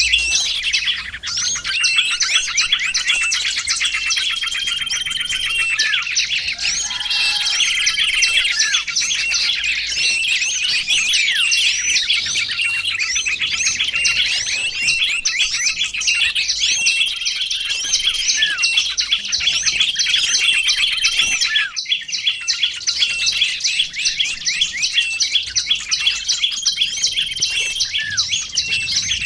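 Small songbirds chirping in a dense, continuous run of rapid high calls, with short steady whistled notes every few seconds; a lure-call recording for attracting small birds.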